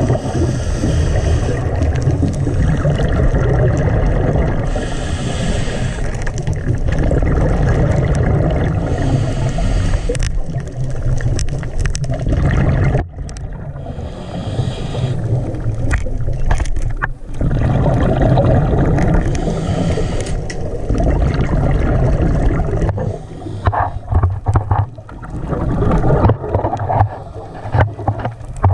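Muffled underwater rumble of moving water against a camera's waterproof housing, with a brief hiss every four or five seconds and some scattered knocks and bumps near the end.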